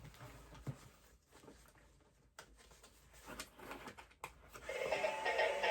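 Faint small clicks and rustling of toy parts being handled. Then, nearly five seconds in, the Dance With Me Dora doll starts playing recorded music with singing.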